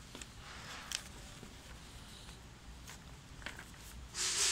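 Papers being handled: faint rustling with a few light clicks, then a short, louder rustle of the sheets about four seconds in.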